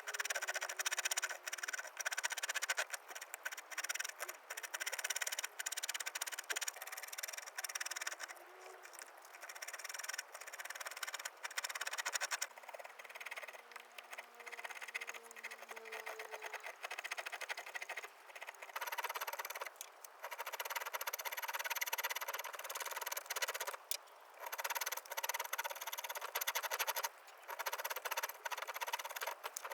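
Hand carving tools cutting and paring cherry wood: a run of short rasping cuts and scrapes with brief pauses between them.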